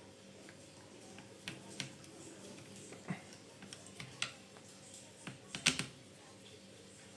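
Scattered clicks and taps of plastic and metal parts being handled on a copier's transfer belt unit during disassembly, a few sharp knocks at irregular intervals with the loudest cluster near the end, over a faint steady hum.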